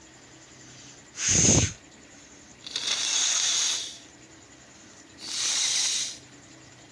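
A person with a head cold blowing a runny nose forcefully three times: a short sharp blast about a second in, then two longer hissing blows.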